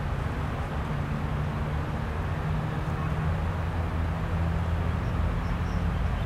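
Steady low rumble of distant motor traffic, unchanging throughout, with a couple of faint high peeps about five seconds in.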